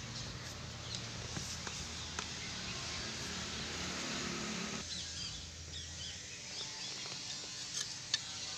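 A few light metallic clicks as steel crankshaft main bearing shells are handled and pressed into the engine block's saddles, the sharpest click near the end, over outdoor background noise. A low background hum cuts off about five seconds in, and faint bird chirps follow.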